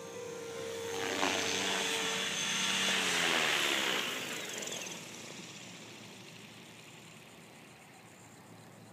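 A small motor passes close by: a whirring buzz swells about a second in, drops in pitch as it goes past, then fades away.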